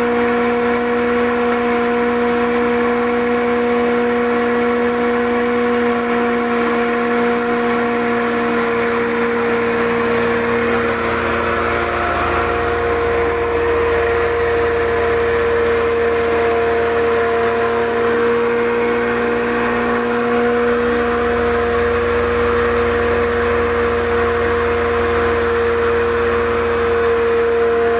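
Commercial spice pulveriser grinding dried red chillies, its electric motor and blower running: a steady hum with constant tones over an even rushing of air and powder.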